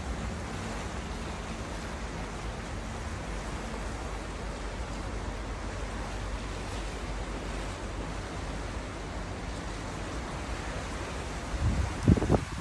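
Sea waves and wind making a steady rushing noise, with a short, loud low rumble near the end, like wind buffeting the microphone.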